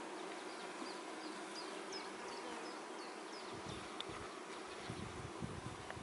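Honey bees buzzing steadily around an open hive.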